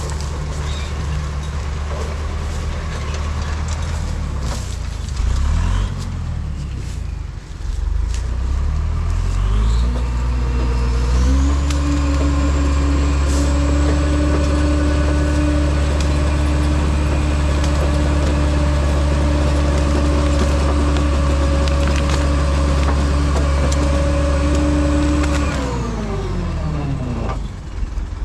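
LKT 81 Turbo skidder's diesel engine idling, then revved up about ten seconds in and held at high revs with a steady high whine while the winch drags chained beech logs in on its cable. The revs drop back to idle near the end.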